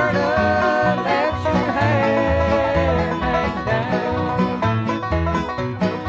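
Bluegrass band playing an instrumental passage: banjo picking with guitar and bass, and a lead melody line that slides and bends in pitch through the first half.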